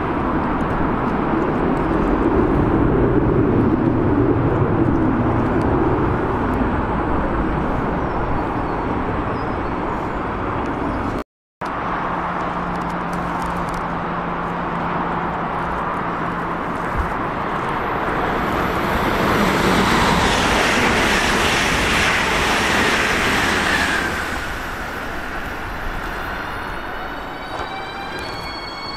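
Electric trains running through a station: a steady rolling rumble, a brief dropout, then a hum and a rush of passing-train noise that swells and drops off about 24 seconds in. Thin high whines begin near the end.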